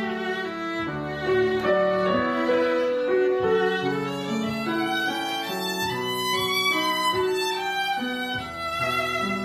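Music played on bowed string instruments: a melody moving from note to note over lower held notes.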